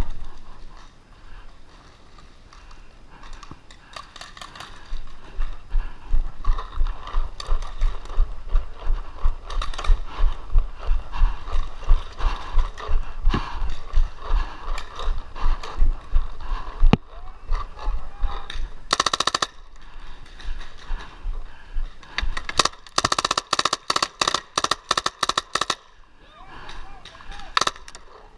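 Paintball markers firing: a short burst of rapid shots about two-thirds of the way in, then a longer rapid string of sharp pops near the end, the full-auto fire of a Tippmann 98 Custom with a Response Trigger. Before the shooting, steady low thumps come about three a second.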